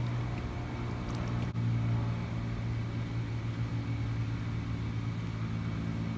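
A steady low mechanical hum, like a running motor, holds level throughout, over the soft sloshing of pool water as a person wades through it.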